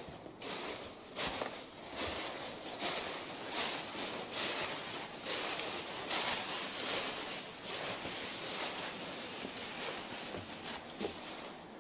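Footsteps crunching irregularly on a gritty floor, with some rustling. They stop near the end.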